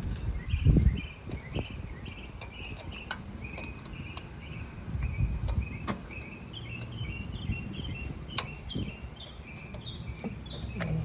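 Scattered metallic clicks and knocks of a socket wrench being worked on a water-pump bolt, with a few dull handling bumps. A steady run of short high chirps repeats a couple of times a second in the background.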